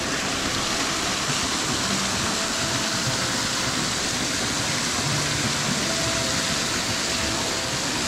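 Steady rush of hot spring water pouring over rock and into pools.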